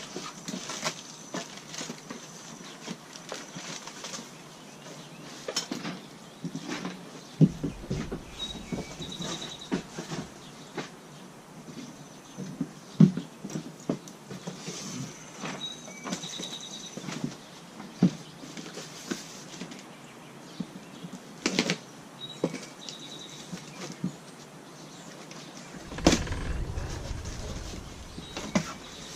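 Scattered knocks, clicks and rustling as lathe parts and packaging are handled and unpacked, with a louder low rumble of handling near the end.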